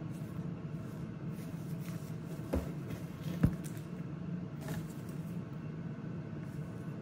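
A belt being handled, with a few small clicks and knocks, including one about two and a half seconds in and a sharper one about three and a half seconds in, as the strap is unrolled and the metal buckle turned over. Under it runs a steady low hum.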